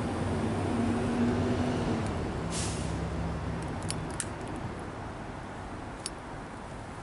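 A vehicle engine droning in the background, its hum dropping in pitch and fading about two seconds in, with a short hiss at about that point. A few sharp ticks come later.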